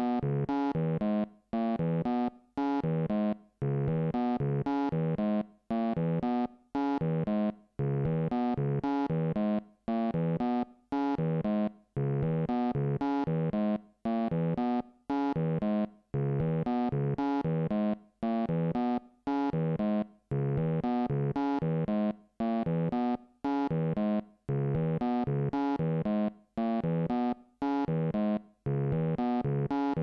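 Elektron Octatrack used as a synthesizer, playing a looped single-cycle 'bird' waveform. A sequenced synth line of short, clipped notes with brief gaps between them repeats in a steady rhythmic pattern.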